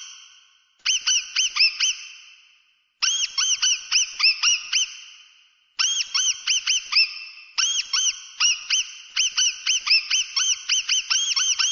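Mouse squeaking in quick runs of short chirps, each rising and falling in pitch, several a second. The runs come in four bursts with brief pauses between them; the last and longest burst takes up the final third.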